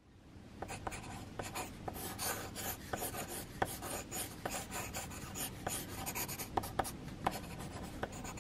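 Pencil sketching on paper: scratchy back-and-forth strokes with many short, sharp ticks, fading in at the start.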